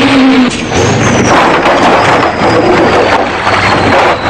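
Heavy truck running loud and steady, with brief dips in level about half a second, two seconds and four seconds in.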